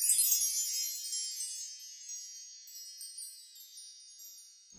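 A bright cluster of high chimes struck all at once, ringing as many steady high notes and fading away over about four seconds, with a few softer strikes along the way.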